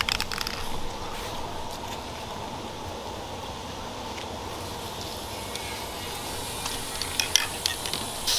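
Aerosol spray-paint can being shaken, its mixing ball rattling in quick, irregular clicks near the end, over a steady background hiss.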